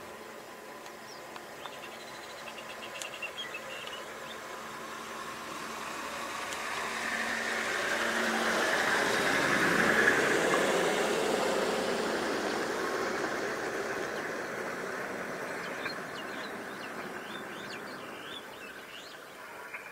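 A motor vehicle passing by: its engine and tyre noise swell slowly, peak about halfway through, then fade away. Faint insect and bird chirps sound underneath.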